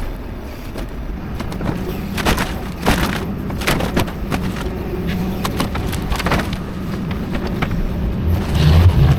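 Excavator engine running under a series of sharp cracks and clattering crashes as building debris is broken and dropped, with a louder low rumble near the end.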